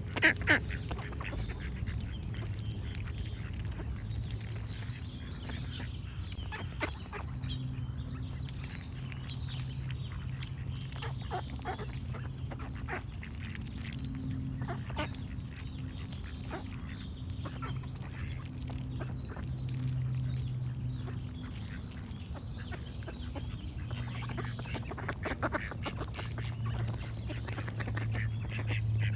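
Ducks quacking off and on, the loudest quack about half a second in, with small birds chirping faintly behind and a steady low hum underneath.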